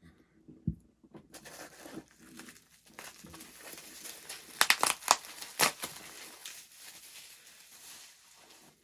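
Packing material crinkling as a mailed hot sauce bottle is unwrapped, a continuous crackle with a few sharper, louder crackles about halfway through.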